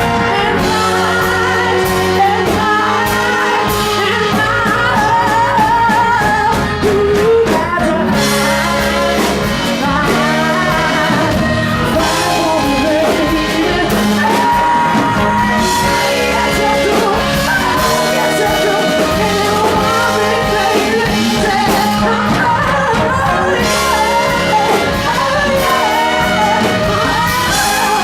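A live band playing a loud, steady groove, with singing and shouts over it.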